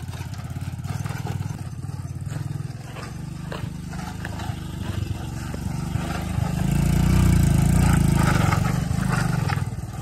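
Small motorbike engine labouring up a steep, rough hill road, with rattling clicks from the bike on the broken surface. The engine grows louder about two thirds of the way through, then eases near the end.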